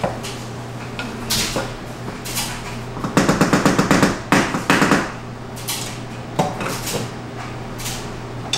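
A utensil scraping and tapping against a pot while cooked rice is fluffed: a few scattered clinks, then a fast run of scrapes about three seconds in that lasts about two seconds.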